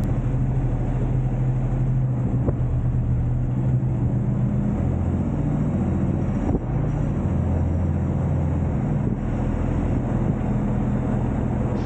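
Diesel semi-truck engine running with a steady low drone, its pitch stepping up and down slightly a few times.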